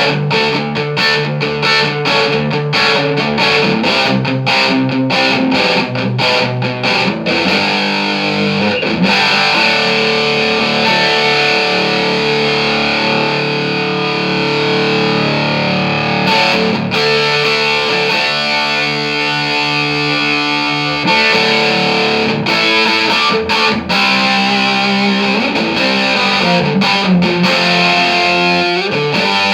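Electric guitar played through a Marshall JCM2000 DSL201 valve combo amp on a distorted sound, the amp working again after a repair. Quick picked riffs come first, then long sustained notes and chords, then more riffing near the end.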